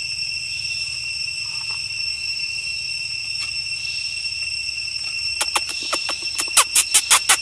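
Insects droning in the forest, a steady high-pitched whine held at a few fixed pitches. About five seconds in, a quick run of sharp clicks, roughly five a second, rises over it and stops just before the end.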